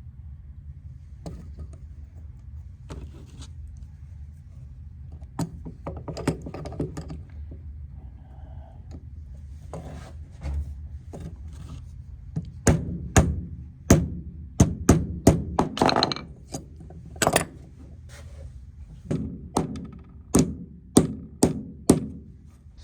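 Hammer blows on a steel patch piece, bending it to a curve: a few scattered knocks, then two runs of sharp strikes in the second half.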